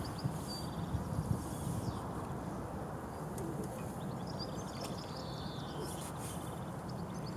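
Outdoor lakeside ambience: a steady low rumble with small birds chirping and trilling, near the start and again about four to five seconds in.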